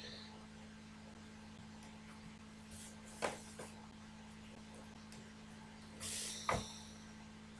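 A plastic set square handled on a drawing board: a sharp click about three seconds in, then a brief scrape as it slides across the paper, ending in a knock as it is set down. A steady low hum runs underneath.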